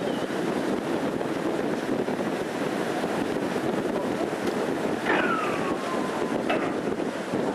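Steady rushing wind noise on the microphone. About five seconds in comes a single short tone falling in pitch, like a whistle, and a brief click soon after.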